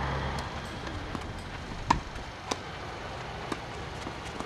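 Tennis ball impacts during a rally: sharp pops of ball on racket strings and court. The loudest comes about two seconds in and another half a second later, with fainter ones before and after.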